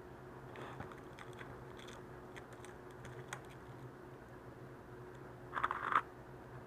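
Light clicks and crinkles of butter cookies being handled and broken, with a short, louder crackle about five and a half seconds in.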